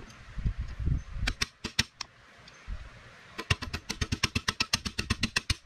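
A small hammer driving a steel roll pin into a woodworker's vise: a few handling knocks, a short run of four taps, then after a pause a fast, even run of light taps, about nine a second, through the end.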